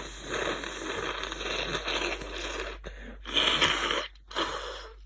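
Nose-clearing noises from a person with a heavy cold and a badly blocked nose: a long stretch of breathy noise, then two shorter, louder blasts about three and four seconds in.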